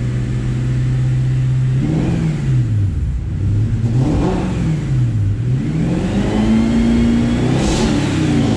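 Twin-turbocharged Ford V8 of a 1998 Saleen Mustang, on Holley Terminator X fuel injection, held at a steady fast idle and then revved up and back down three times. The last rev is held for about a second before it falls back toward idle. The engine is warmed up and running on a freshly revised gasoline base fuel map.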